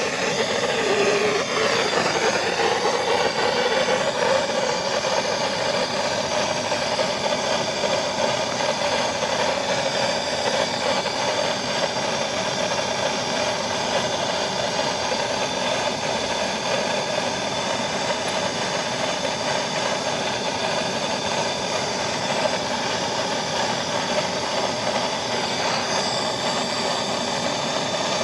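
Handheld gas blowtorch on a canister, its flame burning steadily while it heats a copper pipe fitting for soldering.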